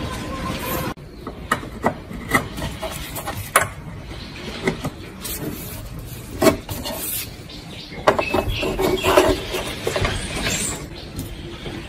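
Hands handling an amplifier's metal case and plugging RCA cable plugs into its rear input jacks: scattered clicks and knocks with short rubbing and scraping, busiest a little past the middle. A steady noise in the first second stops suddenly about a second in.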